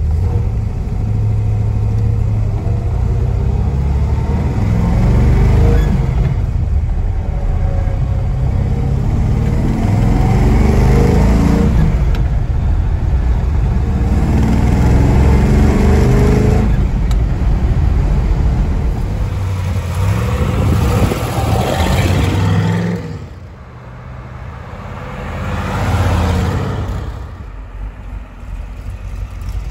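Chevrolet ZZ502 big-block V8 (502 cubic inches) pulling hard through the gears of a manual gearbox, heard from inside the cabin. The engine note climbs in pitch, drops at each upshift, and climbs again, about three times. Near the end the car is heard from outside as it drives past, the engine note swelling and then fading.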